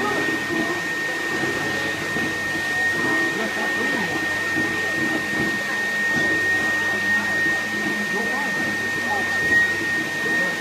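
Teddy-bear stuffing machine's blower running as fluff is blown into a bear: an airy rush with a steady high whine.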